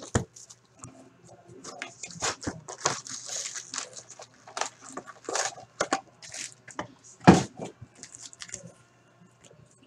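A cardboard hobby box of hockey card packs being opened and its foil-wrapped packs pulled out and stacked by hand: rustling and crinkling of the wrappers with cardboard scrapes and taps, and one sharp knock about seven seconds in.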